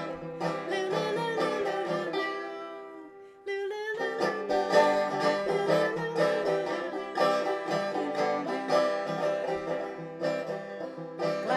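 Plucked string instrument playing a lively folk-style tune, an instrumental break between sung verses of a children's action song. The playing dies down about three seconds in and picks up again straight after.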